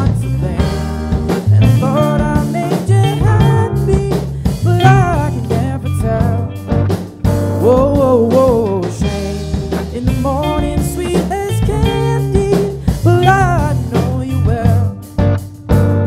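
Live rock band playing: drum kit, bass guitar and electric guitars, with a lead melody of wavering, bending notes over them.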